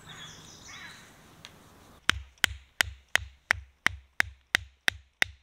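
A carved wooden tarp peg being hammered into the ground: starting about two seconds in, ten sharp, evenly spaced blows come about three a second, each with a dull thud.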